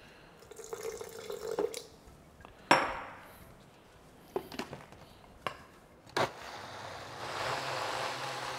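Water poured from a glass jug into a blender jar, followed by a sharp knock and a few clicks as the jar is handled. About six seconds in, the blender starts and runs steadily, pureeing a thick pepper sauce.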